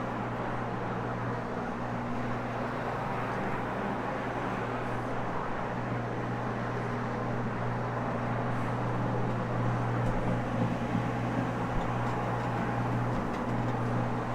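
Carpet-cleaning floor machine running steadily, its motor humming as the hog's hair fibre pad scrubs the carpet; a little louder and rougher about ten seconds in.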